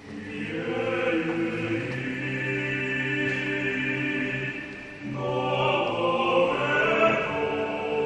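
Choral music: voices holding sustained chords, which break off briefly about five seconds in and resume on a new chord.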